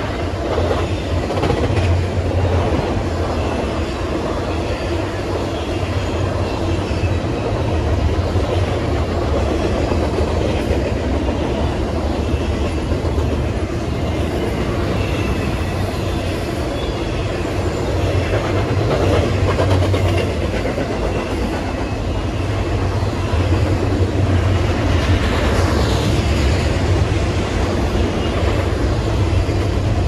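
Long double-stack intermodal freight train passing at speed: the steady rolling rumble of its steel wheels on the rail, car after car.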